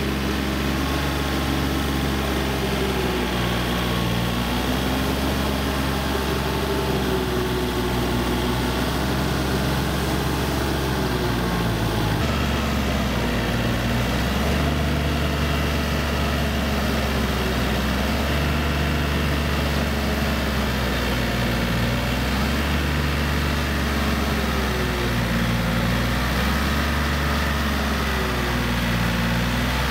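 Yanmar four-wheel tractor's diesel engine running steadily while it pulls a rotary tiller through a wet rice paddy. Its note sags and recovers every few seconds as the load changes, with an abrupt shift in the sound about twelve seconds in.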